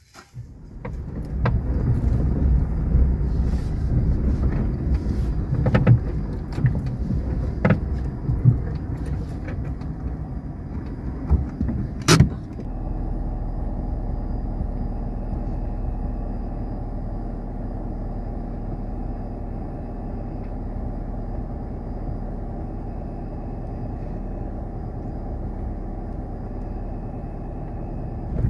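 Car driving: a low rumble with scattered knocks and rattles, which turns into a steadier, smoother hum about twelve seconds in.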